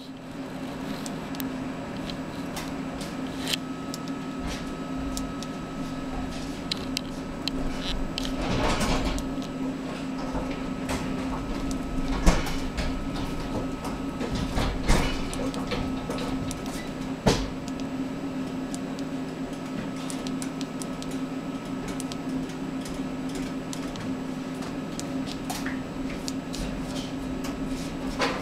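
Steady hum of running bench test instruments, with scattered clicks of front-panel keys being pressed and a few louder knocks.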